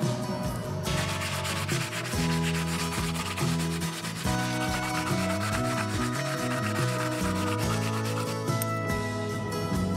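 Power-driven rotary wire brush scrubbing charred wood inside a wooden butter churn box, starting about a second in and stopping near the end, over background music.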